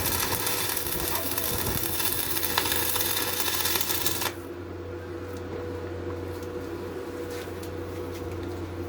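Electric arc welding: a crackling, sputtering arc that runs for about four seconds and then stops suddenly, over a steady electrical hum.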